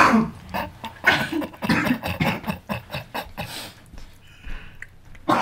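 A cat chewing a fly it has just caught: a run of quick, irregular clicking smacks, after a brief noisy burst at the very start.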